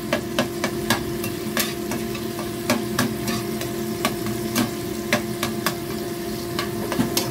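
Metal slotted spatula scraping and knocking against a non-stick frying pan with irregular clicks, stirring tomato, galangal and ginger as they fry in a little oil with a light sizzle. A kitchen range hood fan hums steadily underneath.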